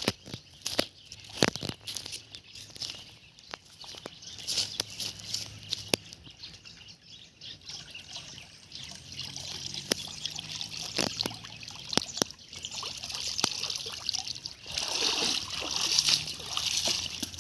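Water trickling and splashing, with scattered sharp clicks and knocks, swelling into a louder rush about three-quarters of the way through.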